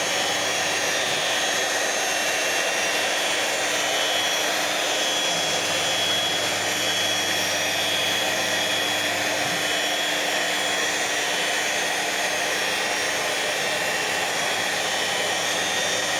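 CNC router running steadily: a constant whine from its spindle and cutting over a rushing noise, with no pauses or changes.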